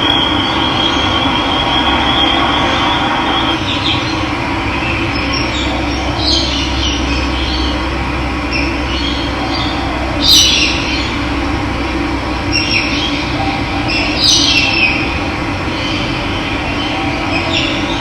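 Running water rushing steadily, with birds calling in short bursts at intervals over it. A high, wavering steady trill sounds for the first few seconds and then stops.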